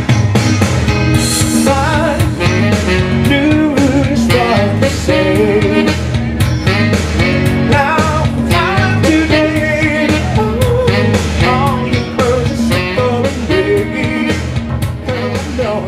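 Live rock-and-roll band music with no vocals: electric guitar and saxophone over a steady bass and drum beat.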